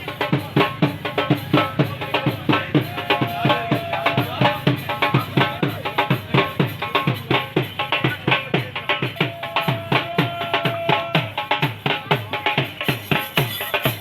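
Music with fast hand-drum playing: steady strokes about four a second, the deep ones sliding down in pitch, with a held melody note now and then.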